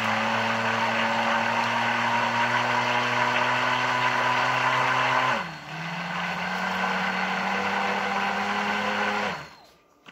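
Cordless Pampered Chef Flex+ immersion blender running in a mug of coffee, whipping butter and MCT oil into it. The motor runs at a steady pitch, drops to a lower pitch about five seconds in, then stops shortly before the end.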